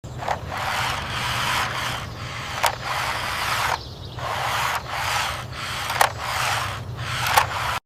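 Toy off-road car rolling over a rough surface: a steady scraping rasp with a few sharp clicks scattered through it.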